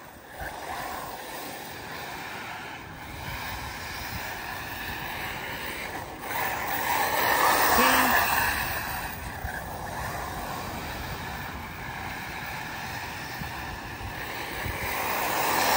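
Arrma Typhon 6S brushless electric RC buggies racing on a dirt track: a steady rush of tyres on loose dirt with motor whine, loudest around eight seconds in as two buggies pass close by, with a brief rising-and-falling whine from a motor at that point.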